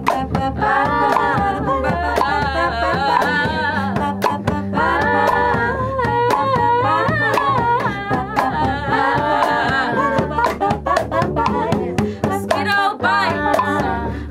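Several women singing together in close harmony, with hand percussion (cajon, shakers and clave) clicking out a steady beat and an upright bass underneath.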